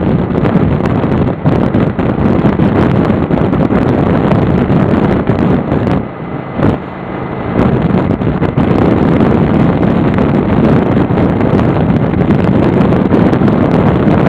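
Heavy wind rushing over the microphone of a camera riding on a motorcycle at highway speed, with vehicle noise beneath it. The rush drops away briefly about six seconds in, then returns.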